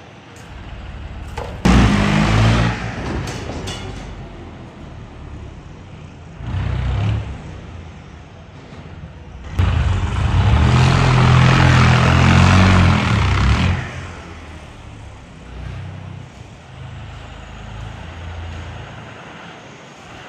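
Indo Farm tractor's diesel engine idling, revved hard twice: briefly about two seconds in, then held for about four seconds from around ten seconds in. A shorter rev comes in between.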